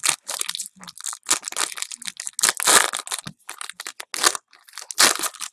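Foil wrapper of a trading-card pack being torn open and crumpled by hand: a run of irregular crinkling crackles, with a few louder tears about halfway through and near the end.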